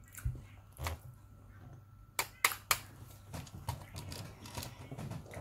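Sharp clicks and taps of a fork and shellfish against a plate while eating, with three loud clicks in quick succession about two seconds in.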